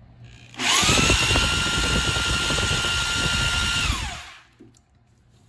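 Electric drill turning the oil pump to pre-oil a small-block Ford V8. It winds up about half a second in, runs with a steady whine for about three seconds, and winds down just after the fourth second.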